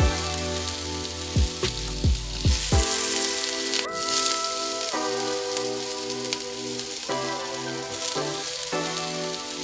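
Food sizzling in a hot frying pan: diced apple and red onion, then chicken breasts searing. Background music with chords plays over it, with drum hits during the first few seconds.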